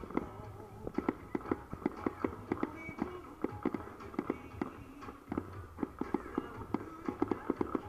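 Fireworks shells bursting: an irregular run of sharp bangs and cracks, several a second.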